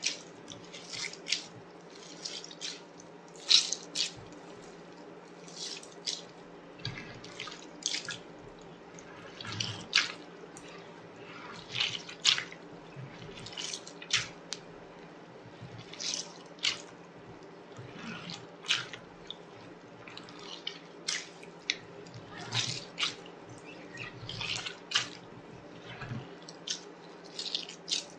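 Homemade slime squished and pulled by hand, making irregular short wet pops and clicks, roughly one or two a second, over a faint steady hum.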